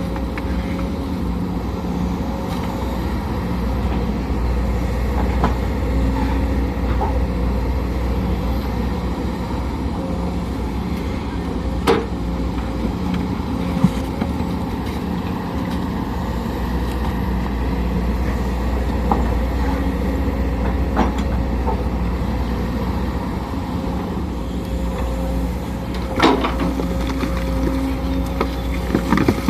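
Sumitomo SH210 hydraulic excavator's diesel engine running steadily under working load, with a few sharp clanks of the machine at work, the loudest about 26 seconds in.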